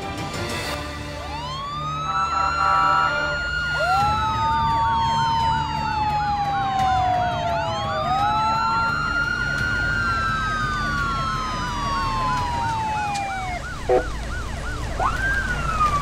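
Several police sirens wailing and overlapping, each rising quickly and then falling slowly over a few seconds, with a faster warbling yelp under them, as police cars approach. A short sharp knock sounds near the end.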